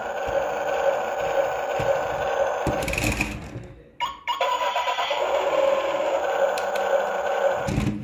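Toy remote-control stunt car's built-in engine sound effect playing from its small speaker, a steady buzzing engine note. It fades away a little after three seconds, starts again abruptly about a second later, and fades out once more near the end.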